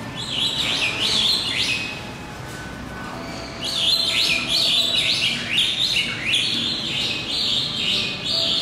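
A small bird chirping: a run of quick, high, falling notes about two a second, in two bouts with a pause of a second or two between them.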